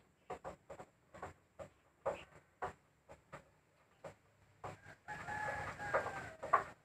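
Short wooden knocks and clicks from a wooden cabinet's doors being handled. About five seconds in, a rooster crows once for nearly two seconds, the loudest sound.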